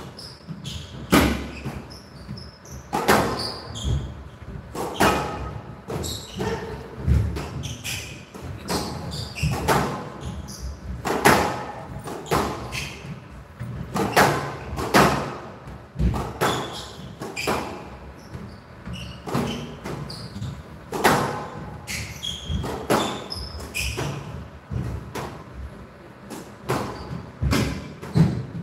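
Squash ball hit back and forth in a long rally: sharp cracks of racket and wall hits about every second, with short high squeaks of court shoes between them.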